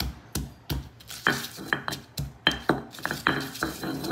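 Stone pestle pounding garlic cloves and salt in a heavy stone mortar to crush them into a paste: regular knocks about three a second, turning quicker with grinding between strokes about a second in.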